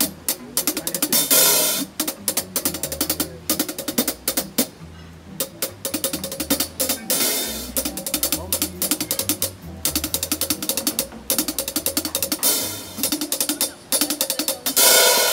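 Drum kit played in a steady groove, dense with hi-hat and snare hits and several cymbal crashes, over a bass line that changes note every second or so.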